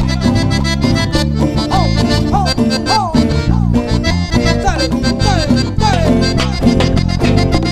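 Live cumbia band playing an instrumental passage between sung verses: a steady beat under a lead line of short, repeated falling slides.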